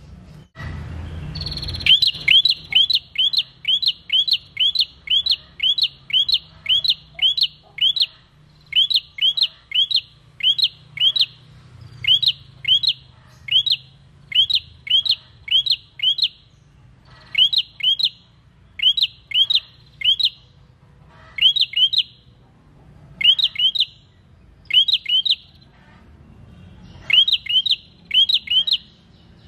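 Prenjak, a rufous-headed tailorbird, calling a long series of sharp, downward-slurred notes at about three a second, in runs of two to four with short gaps.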